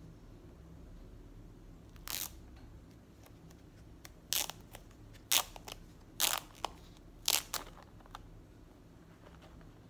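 Paper wrapping sleeve around a new tablet being unfolded by hand, crinkling in about six short, sharp rustles.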